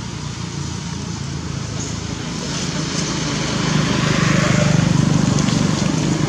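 A motor engine running steadily, growing louder about halfway through.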